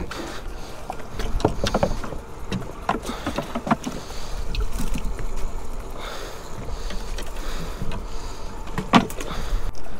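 Scattered knocks and clicks of gear being handled on a plastic fishing kayak as the live-bait well's hatch is opened and a baitfish is scooped out with a mesh net.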